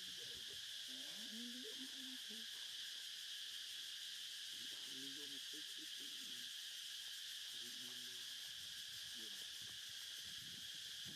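A steady, high-pitched drone of insects calling in chorus.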